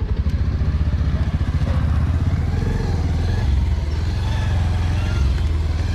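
Motorcycle engine running at low speed as the bike rolls slowly, a steady low pulsing throughout.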